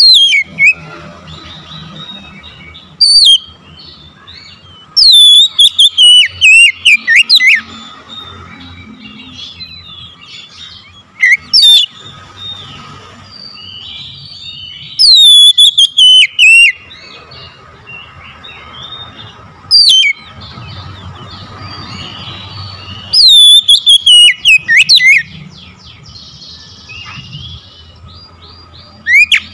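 Oriental magpie-robin singing: loud bursts of rapid, clear whistled phrases that slide down in pitch, repeated every few seconds, with softer chirping between the bursts.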